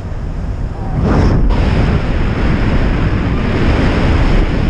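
Air rushing over the microphone of a camera on a flying paraglider, a steady wind roar that grows louder about a second in.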